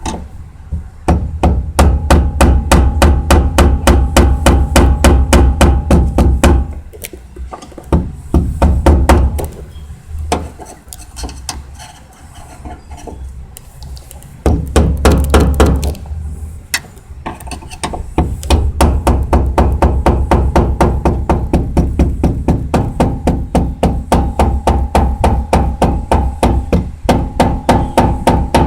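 Hammer tapping a screwdriver set in the notches of a ring on a fuel pump assembly, driving it counterclockwise to loosen it. The taps come in quick even runs of about four to five a second, broken by a few short pauses.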